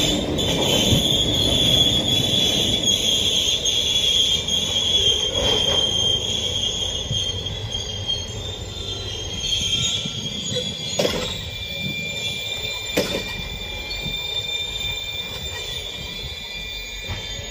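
Railway wheels squealing against the rails in a steady high-pitched squeal, with a few sharp knocks, growing fainter toward the end.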